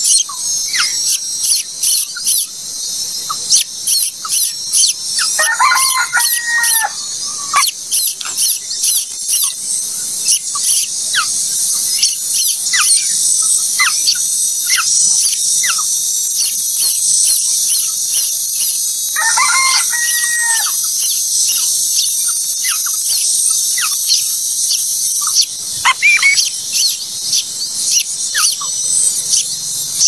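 Nestlings begging at the nest: high-pitched squeaking and chirping, repeated rapidly and denser in the middle, while the adult feeds them. Twice, about 6 and 20 seconds in, a longer, lower call of about a second and a half sounds behind it.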